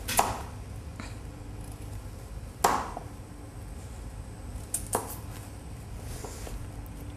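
A chef's knife chopping through a peeled carrot and knocking on the cutting board: three separate chops a couple of seconds apart, the middle one the loudest, with a few lighter taps between.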